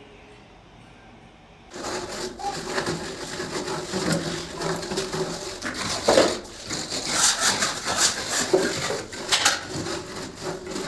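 Construction work: a jumble of knocks, scraping and clatter that starts suddenly about two seconds in.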